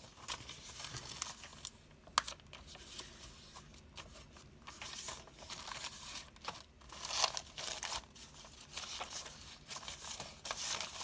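Old paper pages rustling and crinkling as they are handled and laid onto a stack, in irregular bursts with a sharp tap about two seconds in.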